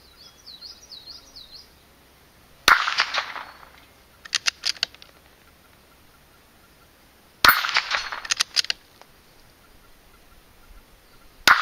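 Three shots from a Marlin Model 80 bolt-action .22 LR rifle, about four to five seconds apart, the last one near the end, with the metallic clang of steel plate targets being hit. After each of the first two shots the bolt is cycled with a few quick clicks. A bird whistles briefly at the start.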